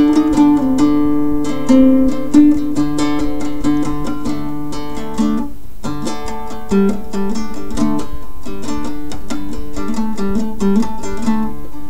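Instrumental music of plucked strings, a run of picked notes over held lower notes, with a brief break about halfway through.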